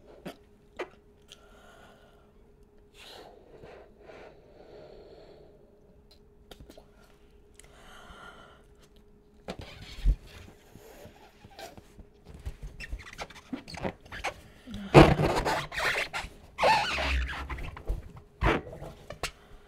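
Latex balloon being blown up by mouth: soft breaths and small rubbery clicks at first, then louder puffs of air into the balloon, loudest in two bursts near the end, with squeaks of gloved hands on the rubber.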